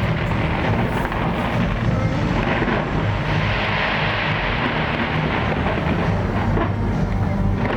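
New Year's fireworks display: many bursts running together into a steady, loud rumble.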